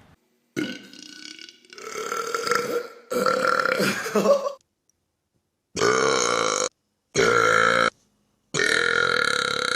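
A series of loud human burps, about six separate belches one after another, each starting and stopping abruptly with short silent gaps between them.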